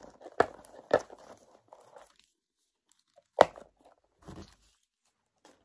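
Cellophane wrapper on a cardboard tea box being picked at by fingers, crinkling, with three sharp cracks and a short rustle; the wrapper is hard to get open.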